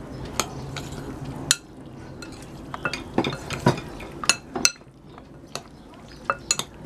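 Raw chicken pieces being mixed and rubbed with ginger-garlic paste in a bowl, with scattered clinks and taps against the bowl.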